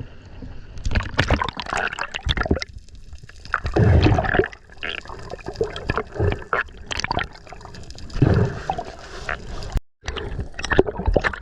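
Seawater sloshing and splashing in irregular surges, the strongest about four and eight seconds in.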